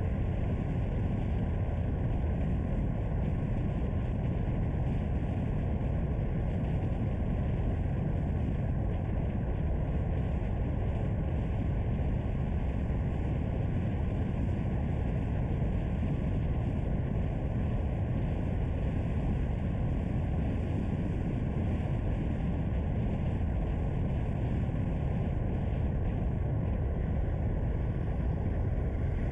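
Steady low rumble of a car being driven at an even pace: engine and road noise with no change in level.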